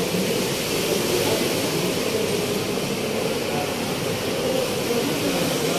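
Typhoon-force wind blowing steadily, a constant rushing noise without breaks or gusts standing out.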